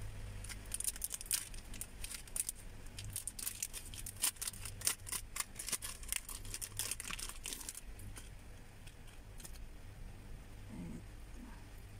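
Small clear plastic earring packet crinkling and crackling in the hands as it is opened, a quick irregular run of crackles that dies down after about eight seconds.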